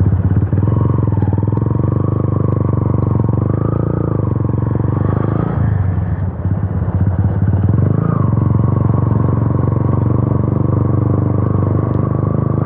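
Yamaha FZ V2's single-cylinder engine running loud through an Akrapovic exhaust with the dB killer removed, while riding. The throttle eases off about six seconds in, then the engine pulls again about two seconds later.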